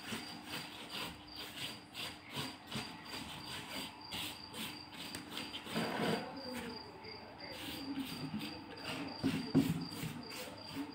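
Silicone pastry brush dabbing and rubbing melted samna (ghee) onto thin galash (phyllo) sheets in a metal tray: a quick, irregular run of soft papery brush strokes, several a second, with a couple of louder bumps, the loudest near the end.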